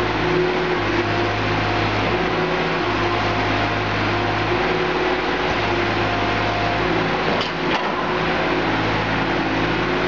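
Mini skid steer loader's engine running steadily while the machine works, with small shifts in its note. A short knock sounds about three-quarters of the way through.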